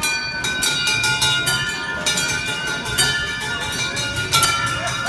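Small brass bells on a kiddie car ride rung over and over, their strikes overlapping into a continuous jangle with ringing tones, over the steady low rumble of the ride turning on its track.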